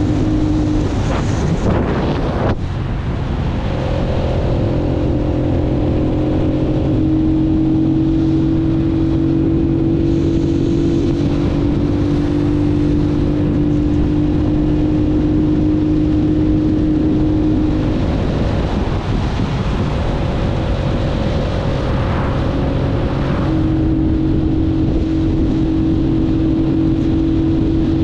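Keeway 125 cc motorcycle engine running under way on a country road, its note steady but shifting in pitch a few times as the throttle or gear changes, with wind rushing over the microphone.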